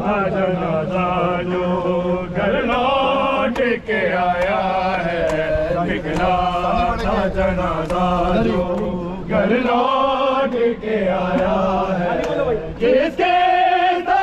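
A chorus of men chanting an Urdu noha, a Shia mourning lament, in long drawn-out melodic phrases, with a low note held steadily beneath much of it.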